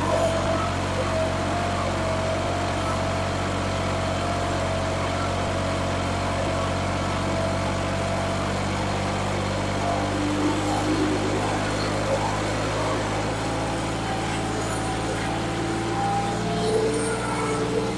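Turbocharged diesel engine of a modified New Holland 3630 tractor running steadily under heavy load while pulling a cultivator through soil, hard enough to lift the front wheels. Its note shifts slightly about ten seconds in.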